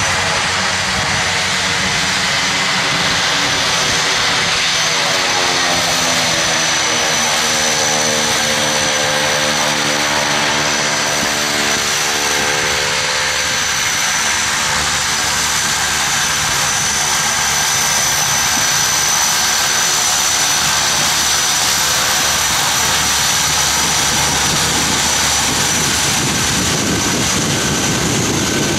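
Beechcraft King Air C90A's twin Pratt & Whitney PT6A turboprops at taxi power: a steady high turbine whine over a propeller drone whose pitch drifts as the aircraft rolls past.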